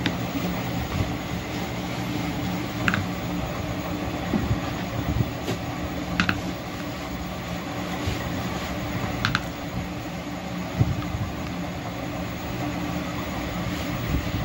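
A few sharp metallic clicks and clinks from a metal toy trailer and tractor being handled, over a steady background hum.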